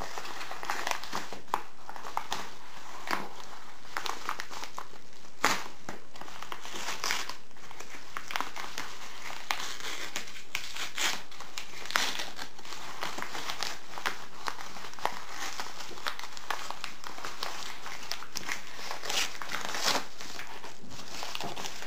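Padded paper mailer envelope crinkling and crackling as hands pull and tear it open, with irregular clicks and a few louder snaps.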